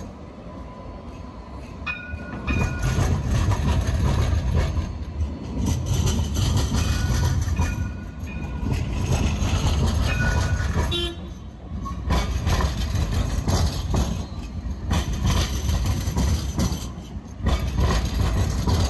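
Alstom Citadis light rail tram rumbling through a street junction, with short high horn tones sounding about three times.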